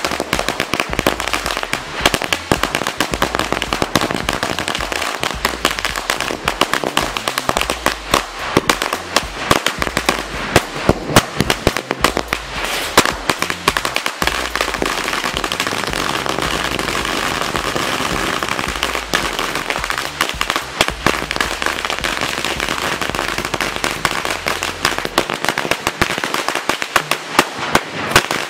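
A 5000-wala ladi, a long string of small firecrackers, going off in a continuous rapid chain of bangs and crackles. In the middle the bangs run together into an almost steady crackle for several seconds.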